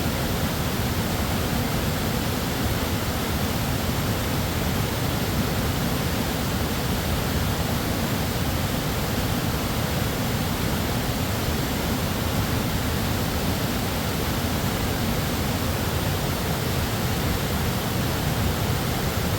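Waterfall crashing onto rock, a steady full rush of falling water with no change.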